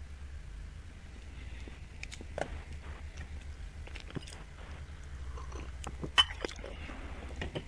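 Open phone line on hold: a steady low hum with scattered small clicks and taps, the sharpest about six seconds in.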